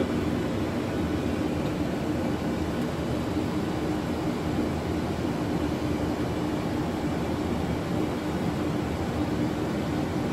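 Steady flight-deck noise of an Airbus A330 descending on approach: a constant rush of airflow and engine noise with a faint steady hum underneath.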